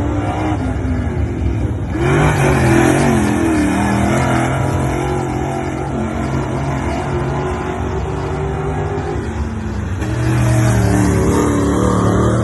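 Dirt late model race car's V8 engine running hard, its pitch rising and falling as it revs. It surges louder about two seconds in and again near the end.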